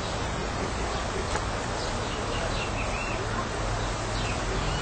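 A few short bird chirps over a steady outdoor hiss and low rumble, the chirps coming mainly about three seconds in and again near the end.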